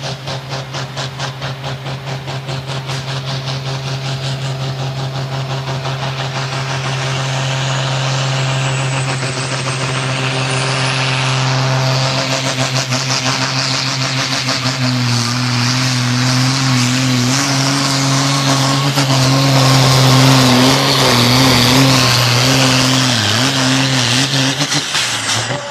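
Single-turbo diesel engine of a 3.6-tonne Super Sport pulling tractor at full throttle on a pull against the brake sled: a steady deep engine note that grows louder, with a hiss building above it. About fifteen seconds in the pitch starts to waver under load, and the engine drops off sharply near the end.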